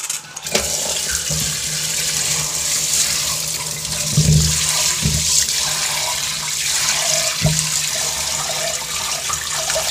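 Tap water running into a steel bowl of rice in a stainless steel sink while a hand swishes the rice to wash it, starting about half a second in. A few soft knocks sound partway through.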